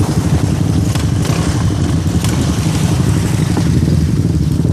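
A motor vehicle's engine running steadily with a low drone and road noise, with a few light rattles.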